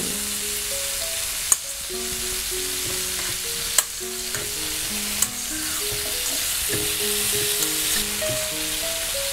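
Steady sizzle of beef frying in a pan, with a few sharp clicks of a spoon against a stainless-steel mixing bowl as a salad is tossed. Soft background music with a stepping melody runs underneath.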